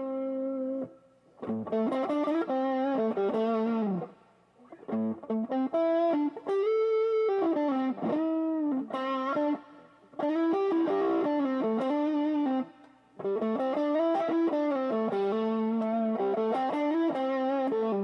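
Aria Pro II XR series electric guitar played through distortion. It plays single-note lead phrases with string bends and vibrato, broken by short pauses.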